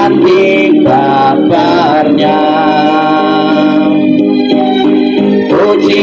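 A group of voices singing a Buddhist Waisak hymn in Indonesian, with a sustained organ-like accompaniment underneath.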